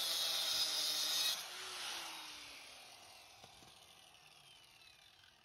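Handheld electric circular saw with a freshly resharpened blade cutting through a wooden plank, then released about a second and a half in. Its motor whine falls in pitch and fades as the blade spins down.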